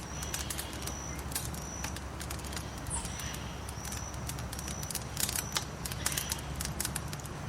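Wood fire crackling in a fireplace, with many sharp irregular pops over a steady low rumble. A high, short chirp repeats about every three quarters of a second behind it.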